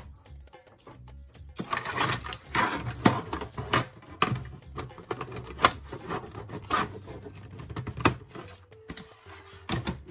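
Hard plastic diorama wall panels of a NECA Street Scene set clicking and knocking as they are handled and snapped together, a quick run of sharp clicks starting about a second and a half in, over light background music.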